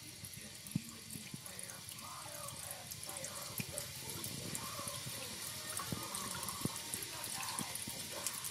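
Tap water running steadily into a stainless steel kitchen sink, with scattered splashes and drips.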